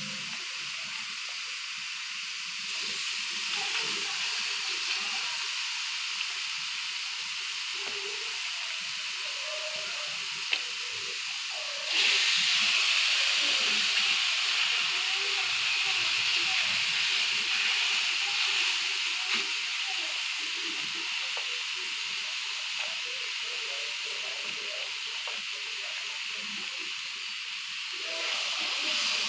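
Seasoned meat sizzling on a hot electric grill plate, a steady hiss. It grows louder about twelve seconds in as more pieces are laid on, and rises again near the end.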